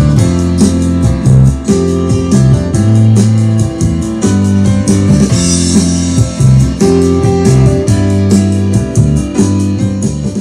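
Music played from a CD through a Kenwood KR-3090 stereo receiver and its loudspeakers: a band track with a steady beat, bass and chords.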